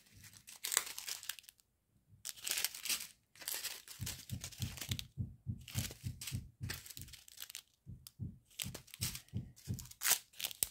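Clear plastic strip sachets of round diamond-painting drills crinkling and rustling in the hands, in short irregular bursts, with soft low knocks of handling through the middle and end.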